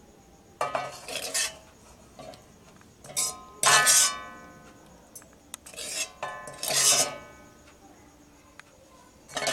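Metal ladle scraping and clinking against an aluminium kadai and a steel serving bowl as curry gravy is spooned out. The clatter comes in several short bouts, and the loudest, about four seconds in, leaves a brief metallic ring.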